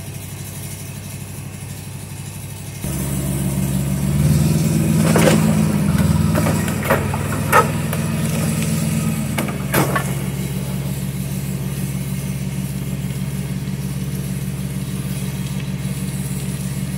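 A motor running steadily, which picks up about three seconds in and settles back just before ten seconds. Several sharp knocks come while it is at its strongest.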